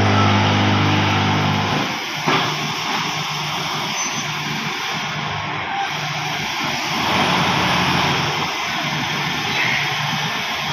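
Brick-plant machinery running, a steady broad roar. A strong low hum for the first two seconds cuts off, a single sharp knock follows, and fainter hum comes and goes after it.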